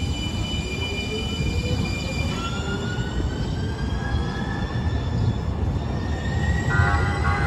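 San Diego Trolley light rail train: high-pitched wheel squeal as it rounds a curve into the station, over a low rumble of rolling wheels. About two seconds in, the steady squeal gives way to several tones that rise slowly in pitch.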